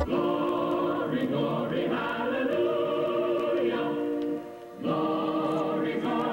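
A choir singing slow, held notes in several voice parts, with no instruments. There is a brief break between phrases about four and a half seconds in.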